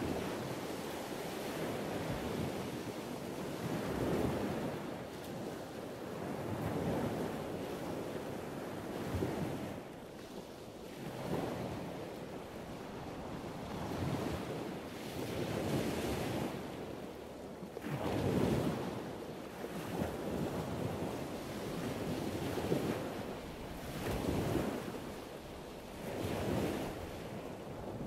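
Heavy storm surf breaking and surging, with wind. It swells and ebbs about every two to three seconds.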